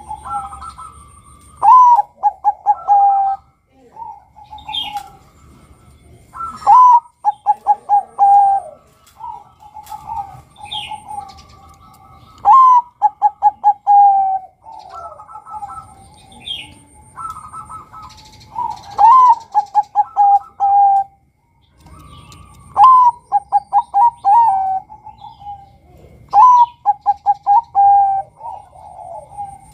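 Zebra dove (perkutut, Bangkok type male) singing its cooing song: six phrases a few seconds apart, each a rising opening note followed by a fast run of short, clipped coos. Softer coos fill the gaps between the phrases.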